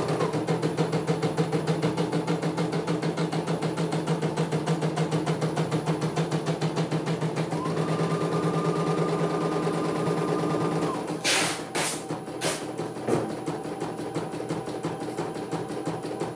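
CNY E900 computerized embroidery machine stitching a design, its needle running in a fast, even rhythm over the steady hum of its motor, with a rising-then-falling whine shortly before the stitching stops about two-thirds of the way through. A few sharp clicks follow, then a faint steady hum.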